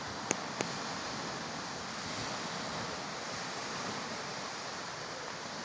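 Steady wash of sea surf breaking on the beach, with some wind. Two short clicks come close together near the start.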